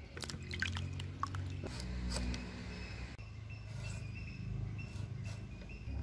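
Tomatoes handled in a wicker basket, with a quick run of light clicks and knocks in the first couple of seconds, then a ripe tomato sliced against a curved blade fixed on a wooden stand, giving soft wet cutting sounds. A low steady rumble lies underneath.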